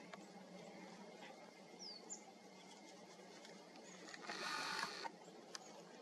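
Faint rapid crunching and gnawing of a Eurasian red squirrel in grey winter coat cracking sunflower seeds at a feeder, loudest for about a second near four seconds in. A few faint high bird chirps come through.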